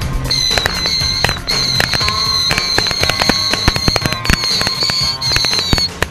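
Pyrotechnics fired from a radio-controlled model helicopter: a dense run of sharp crackling pops and bangs, several a second, over a high whistle that breaks off and restarts a few times.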